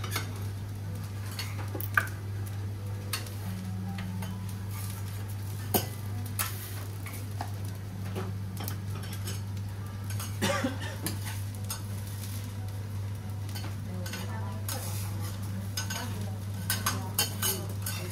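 Metal spatulas clinking and scraping on a teppanyaki griddle in scattered sharp clicks, with a faint sizzle and a steady low hum underneath.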